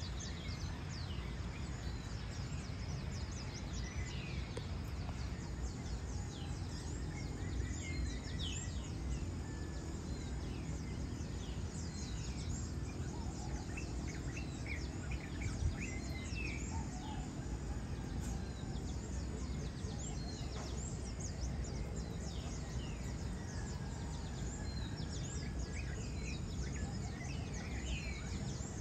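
Birds chirping in many short, quick calls scattered through the whole stretch, over a steady low background rumble of outdoor ambience.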